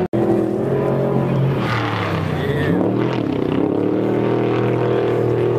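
Off-road race vehicle engine running hard, its pitch dipping and then climbing again about two seconds in as it revs, over a steady engine drone. The sound cuts out for an instant at the very start.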